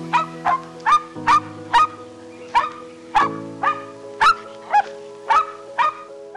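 A small dog yapping in a quick run of short, sharp barks, about two a second, over background music.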